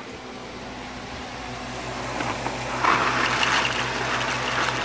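Dry pasta pouring from a cardboard box into a pot of boiling water, a rattling, splashing rush that starts about three seconds in over bubbling water and a steady fan hum.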